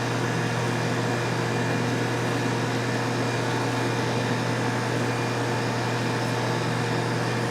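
A steady machine hum with a low drone and an even hiss, unchanging throughout.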